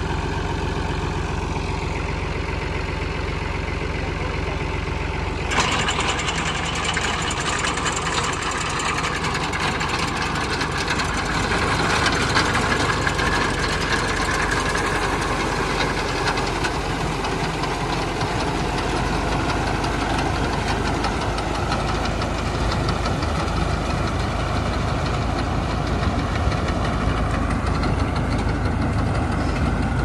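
Fiat 480 tractor's diesel engine running steadily, driving a front-mounted reaper through standing wheat. About five seconds in, the sound turns suddenly louder and harsher and stays that way while the crop is cut.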